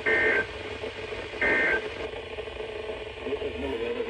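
Two short bursts of Emergency Alert System (SAME) digital data tones, a harsh buzzing screech, about a second and a half apart: the end-of-message code that closes an EAS alert. A steady broadcast hiss and low hum run beneath.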